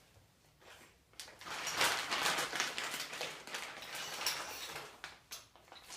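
Plastic packaging crinkling and rustling as a brewing-system part is unwrapped, followed by a few small clicks near the end.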